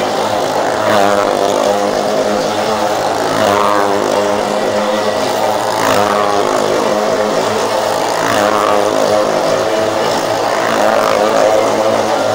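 Engine of a vehicle riding round the wooden wall of a well-of-death drum, running hard without a break. Its sound surges and fades in a steady cycle about every two and a half seconds as it passes each lap.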